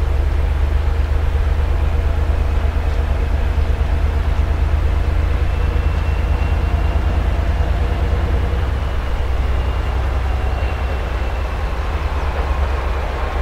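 Steady low drone of the diesel engines of a three-section M62-series locomotive (2M62U/2M62) working under power as it hauls a freight train.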